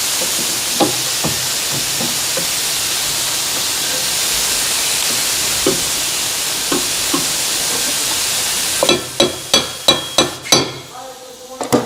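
A steady high-pitched hiss that stops abruptly about nine seconds in, followed by a quick run of sharp knocks with a faint metallic ring, and two more knocks near the end.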